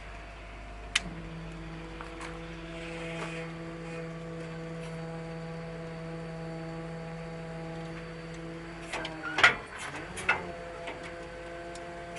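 A machine's steady mechanical hum that starts just after a click about a second in. Sharp clunks come about nine and ten seconds in.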